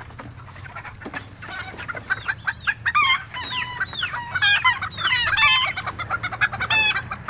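Several chickens clucking and squawking, the calls starting about a second and a half in and growing louder and busier, with loud bursts of squawks around the middle and near the end.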